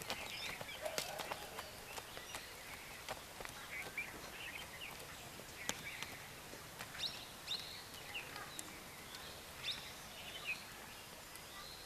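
Small birds chirping in short, scattered calls over a steady outdoor hiss, with a few sharp clicks now and then.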